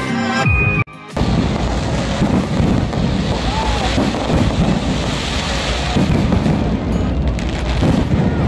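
Music ends about a second in, cut off by aerial fireworks bursting overhead: a dense, continuous crackling and booming.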